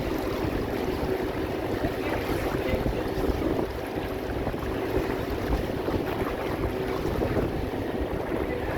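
Small motorboat out on a choppy sea: a steady hum from the boat with wind buffeting the microphone and the wash of waves.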